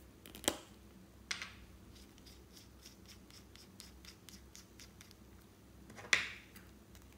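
Plastic twist-up lipstick tube being handled: a sharp click as it is opened, then a run of small quick ticks, about five a second, as the base is twisted, and another loud plastic click near the end.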